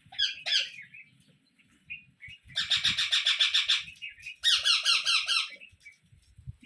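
Indian ringneck parrot chicks begging while an adult feeds them: a few short squawks, then two rapid pulsing bursts of calls about a second long each.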